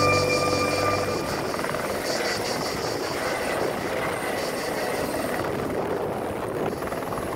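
Helicopter engine and rotor noise heard from inside the cabin, steady, with a faint rapid pulsing from the blades. Background music fades out about a second in.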